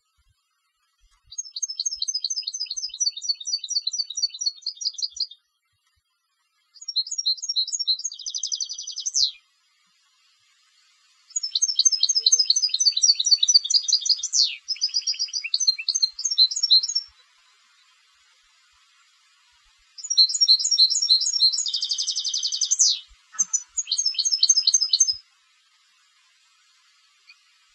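European goldfinch singing in the style of a Spanish competition bird (jilguero de concurso). It sings four bouts of rapid twittering and trilling notes with short buzzy rolls among them, separated by pauses of one to three seconds.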